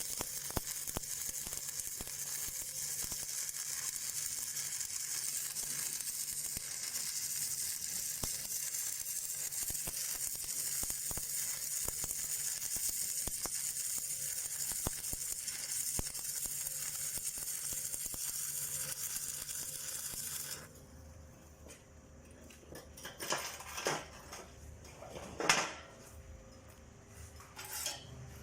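Arc welding on steel: a steady crackling sizzle of the welding arc that cuts off suddenly about two-thirds of the way through as the arc is broken. A few sharp metallic clinks follow.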